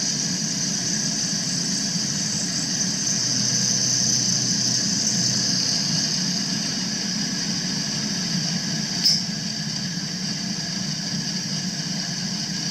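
A 3/8-inch end mill on a milling machine cutting metal: a steady high-pitched squeal over the low hum of the running spindle, with a single sharp click about nine seconds in.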